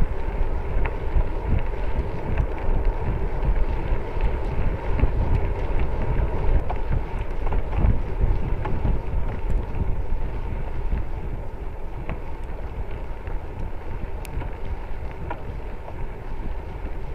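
Wind buffeting the microphone of a camera mounted on a moving bicycle, a steady low rumble over the rolling noise of the bike on a dirt gravel road, with a few faint clicks.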